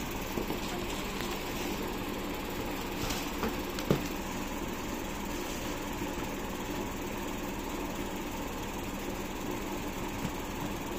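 Steady mechanical hum in the background, with faint rustling of tissue paper and shoe handling and one sharp knock about four seconds in.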